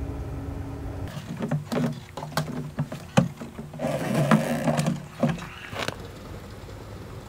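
Clicks and knocks of a fuel pump nozzle being handled and pushed into a plastic fuel can. About four seconds in, diesel rushes into the can for a second or so, then keeps running more quietly.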